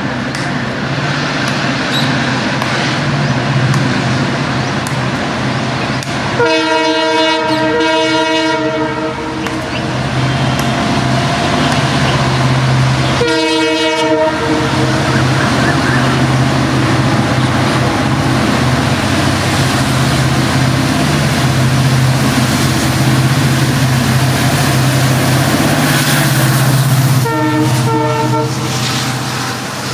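EMD WDP4 diesel locomotive passing with its engine humming steadily over the noise of the train on the track, sounding its multi-tone air horn three times: a long blast about six seconds in, a short one about thirteen seconds in, and another short one near the end.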